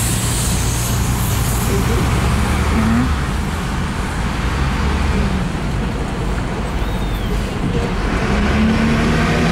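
Street traffic: a steady drone of vehicle engines and road noise. A heavier engine hum comes in near the end.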